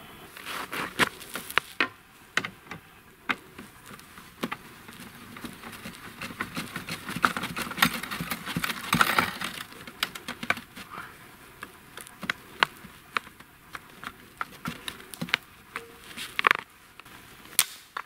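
Irregular rustling and sharp crackling clicks of a hunter on skis handling a fladry line of red cloth flags on a cord and a flag reel among snowy brush and twigs, with skis scuffing in the snow.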